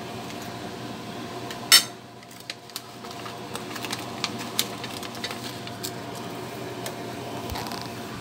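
A sharp clack of a metal utensil against a plate about two seconds in, then scattered small clicks and crinkles as the plastic packet of dry nurungji (scorched rice crisps) is handled, over a steady mechanical hum.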